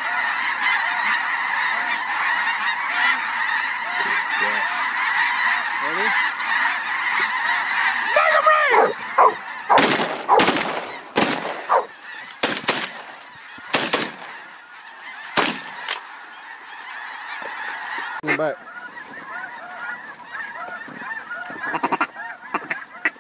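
A huge flock of snow geese calling overhead: a dense, continuous clamour of high honking yelps. From about eight to sixteen seconds in, several loud, sharp knocks cut through the calling, and the calling thins out near the end.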